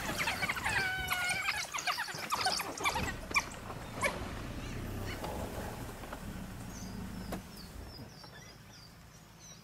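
A fight between African wild dogs and a spotted hyena: high-pitched animal squeals and calls, with many short sharp clicks through the first few seconds. The sound grows quieter about three quarters of the way in, leaving faint high chirps.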